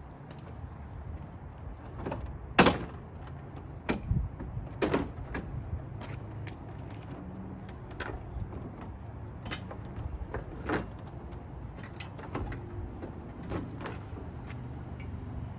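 Irregular sharp clicks and knocks of hand tools on metal bolts and brackets while a vehicle's front bumper is being unbolted, the loudest knock about two and a half seconds in, over a low steady rumble.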